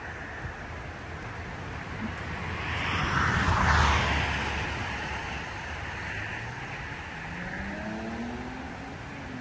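Traffic on a busy road: a steady rush of passing vehicles, with one vehicle passing loudest about three to four seconds in. Near the end an engine climbs in pitch as it accelerates.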